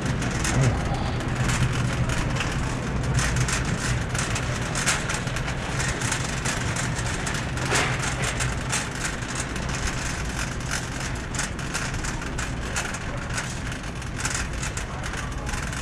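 Supermarket background noise while walking through the aisles: a steady low hum with frequent light clicks and rattles throughout.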